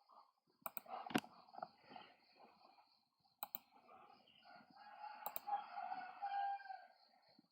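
Computer mouse clicks, a handful spaced a second or more apart, over a faint steady high whine. A drawn-out pitched sound rises in the background a few seconds in and fades near the end.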